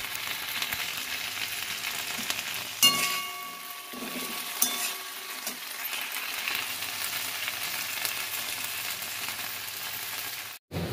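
Okra and potato pieces sizzling as they fry in a kadai, turned with a spatula; a sharp, ringing clank against the pan about three seconds in and a lighter knock a couple of seconds later.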